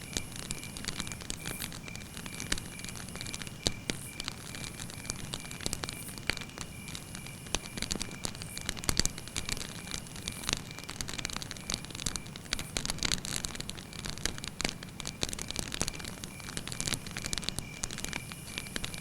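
Campfire burning, crackling constantly with irregular sharp snaps and pops over a low hiss of flame.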